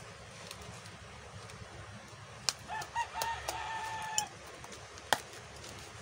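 A rooster crowing once, starting about two and a half seconds in: a few short notes and then a longer held one. Two sharp snaps, about two and a half seconds apart, come from cardboard and tape being torn off a parcel.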